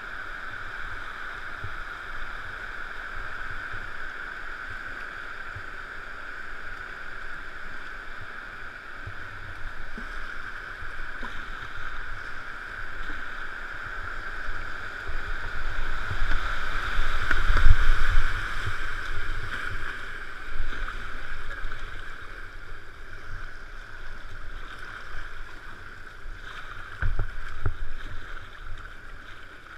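Rushing white water at a river weir, heard from a kayak on the water. The rush grows louder with splashes and low thuds about halfway through, then eases back to flowing water, with another brief thud near the end.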